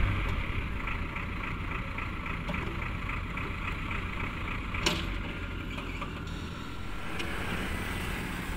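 Heavy vehicle's engine running low and steady after coming off higher revs, with a single sharp click about five seconds in.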